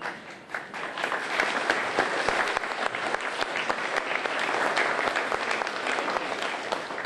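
Audience applauding: many hands clapping together, swelling in the first second, holding steady, then dying away near the end.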